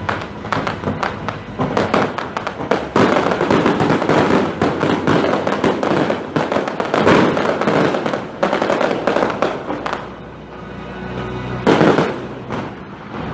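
Fireworks finale: a rapid barrage of bursts and crackling, thickest in the middle, easing off about ten seconds in, then one last loud burst near the end. Show music plays underneath.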